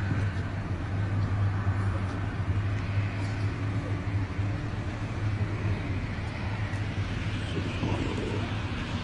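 Steady low engine drone with a continuous rushing noise over it.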